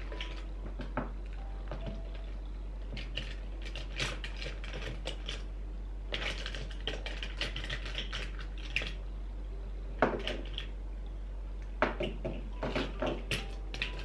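Small objects clicking and clinking together inside a black zippered pouch as hands rummage through it, with rustling of the pouch. Scattered light clicks, thickening into busier clusters in the middle and near the end.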